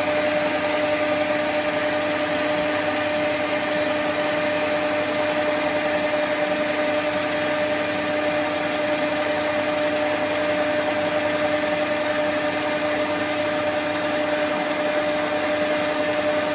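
Metal lathe turning a stainless steel pin held against a live centre, taking a cut. The machine runs with a steady, even whine over the hiss of the cut, without change.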